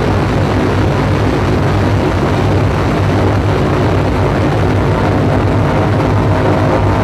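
Loud, steady electronic noise drone from a live electronic sound performance: a dense noisy wash over a strong low hum, with several faint held tones above it.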